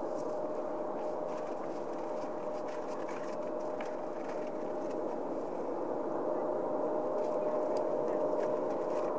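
Airliner jet engines running at taxi power: a steady rushing hum with one held whine in it, growing slightly louder about six seconds in.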